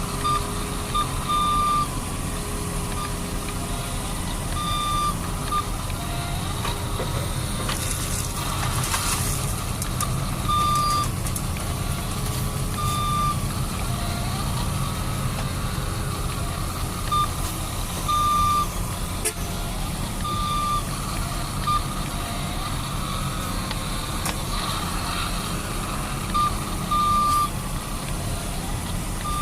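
Toy truck sound effects: a steady truck-engine rumble, with short reversing beeps in small groups at uneven intervals.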